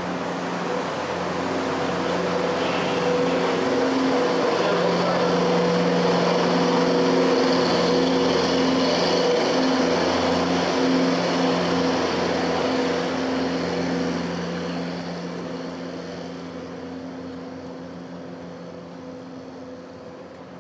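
An engine passing slowly: a steady hum that swells, peaks about a third of the way in, then fades away.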